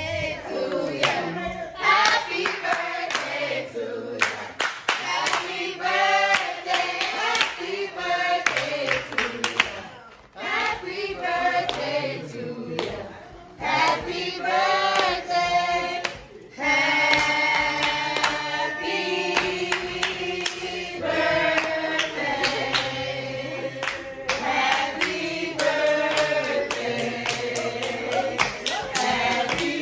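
A group of people singing together, clapping along to the beat.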